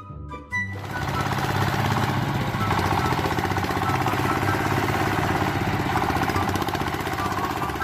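Loud machine noise with a fast, even rattle, starting under a second in and cutting off at the end, over faint background music.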